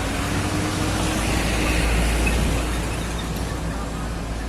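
Heavy diesel truck engine running with a steady low drone, over road noise.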